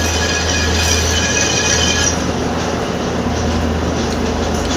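Metal lathe running with a steady motor hum, and a high-pitched squeal of the cutting tool on the metal workpiece for about the first two seconds, which then stops while the machine keeps running.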